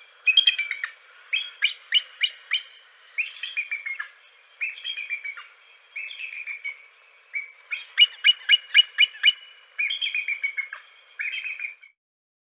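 Bald eagle calling: a string of high, thin chittering and piping notes in quick runs with short gaps between them. Many of the notes fall in pitch, and the fastest stuttering run comes about two-thirds of the way through.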